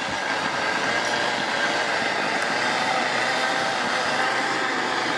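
Electric mixer grinder (mixie) motor running steadily, whirring as it blends a liquid milk ice cream base in its steel jar.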